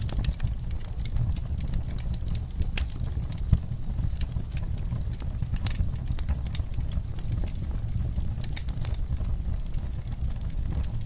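Wood fire burning in a fireplace, crackling with frequent irregular sharp pops over a low steady rumble; one louder pop about three and a half seconds in.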